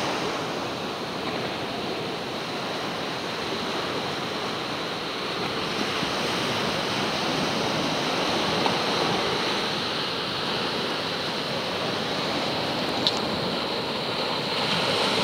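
Ocean surf: small waves breaking and washing up the sand in a steady, continuous wash.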